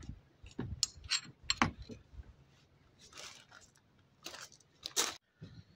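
Small engine parts and tools being handled by hand: a run of light clicks and taps, then a few short rattling scrapes in the second half.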